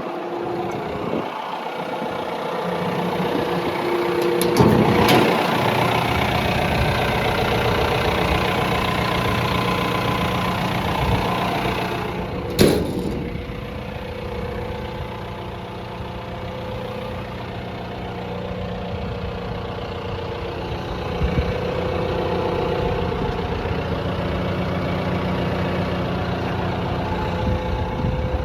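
John Deere 4.5-liter diesel engine of a 160G LC excavator running steadily at idle, which the seller judges to be running well. A sharp click comes about halfway through.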